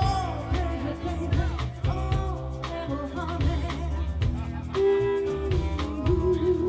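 Live rhythm and blues band playing: a woman singing, with a long held note, over electric guitar and drum kit.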